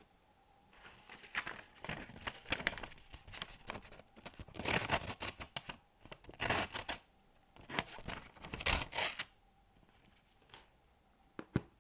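Black blade of a credit-card folding safety knife slicing through a sheet of paper in a series of cutting strokes, the loudest around the middle. A couple of short clicks follow near the end.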